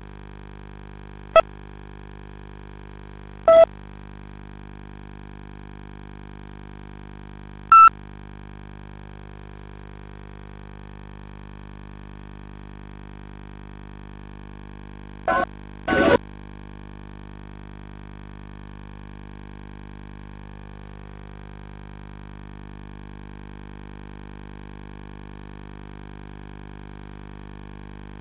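Side-blown bamboo flute (bansuri) played into a PA microphone, heard only as five short, loud notes at uneven intervals, two of them close together past the middle, over a steady electrical hum from the sound system.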